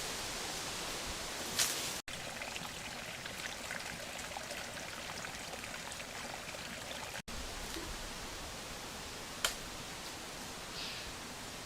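A steady, even hiss with a few faint sharp clicks, cut off briefly twice.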